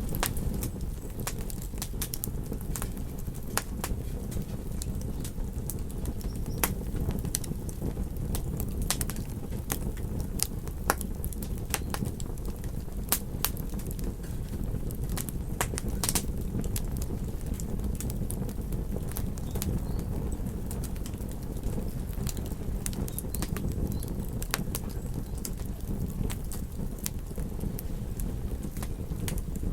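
Fireplace fire burning with a steady low rumble of flames and frequent, irregular sharp crackles and pops.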